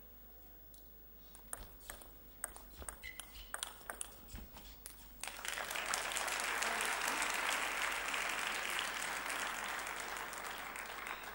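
A table tennis rally: the ball clicks off bats and table in quick, uneven strokes for about three and a half seconds. Then the crowd breaks into applause as the point ends, clapping for about six seconds and slowly fading.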